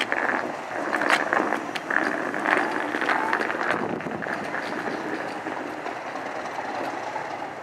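Diesel locomotives running in a station yard. Sharp clicks and knocks of wheels over pointwork fall over the first few seconds, then the sound settles into a steadier engine drone.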